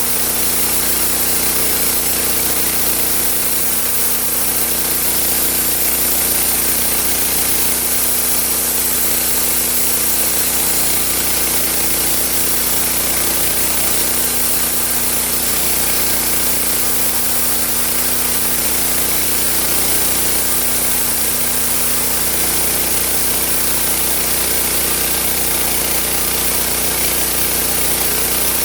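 Homemade sawmill running steadily: an engine hum under the constant noise of sawing wood.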